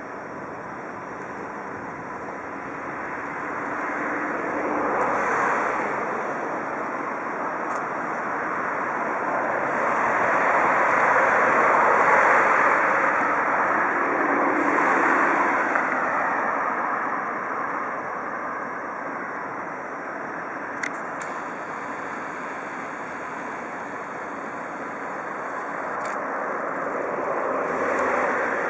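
Outdoor rail and traffic noise: a rushing rumble of passing vehicles that swells and fades several times, loudest in the middle. A couple of sharp clicks come about two-thirds of the way through.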